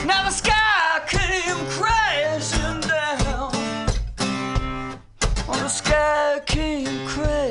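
Acoustic guitar strummed in a song, with a wordless, wavering sung vocal line over it; the sound dips briefly about five seconds in.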